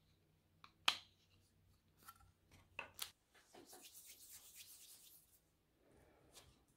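Faint handling of DekoSnakeRoller texture plates: a few sharp clicks, the loudest about a second in, as the plates are fitted together, then a hand rubbing over a sheet of paper for about two seconds.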